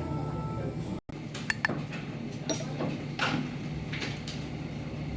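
Light clinks and knocks of dishes and cutlery over a steady low hum of room ventilation, with the sound cutting out completely for a moment about a second in.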